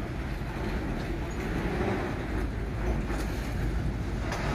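Freight train of loaded flatcars rolling slowly past: a steady rumble of wheels on the rails, with a couple of short sharp clicks in the second half.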